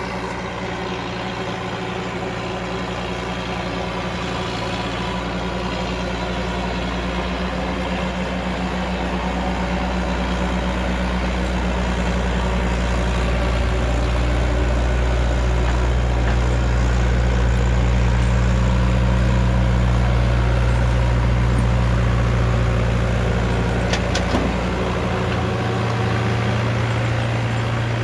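Backhoe engine running steadily under a continuous low hum, growing gradually louder toward the middle and easing off a little near the end, with a single short knock late on.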